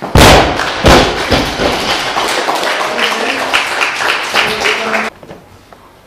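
Loaded barbell with Eleiko rubber bumper plates dropped from overhead onto the lifting platform: a heavy thud, then a second thud as it bounces about a second later. Applause with a few voices follows and stops abruptly about five seconds in.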